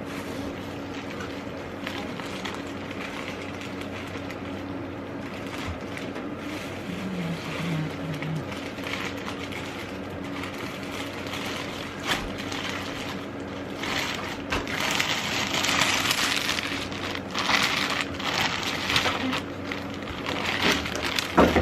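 Plastic packaging bag rustling and crinkling in bursts as a wig is packed into it, loudest in the second half, over a steady low hum.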